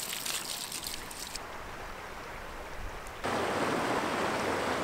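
Water poured from a container splashing onto a smouldering log fire, ending about a second and a half in. From about three seconds in, the louder, steady rush of a fast-flowing, high river.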